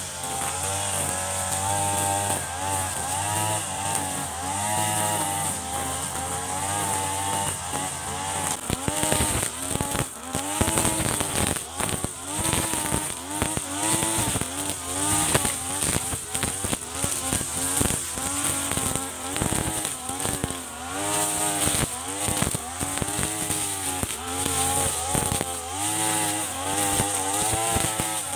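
Backpack brush cutter with a Mitsubishi TU33 33 cc two-stroke engine cutting grass, its engine pitch rising and falling over and over as the throttle is worked. A steady high whine runs above the engine, which the owner likens to a turbo.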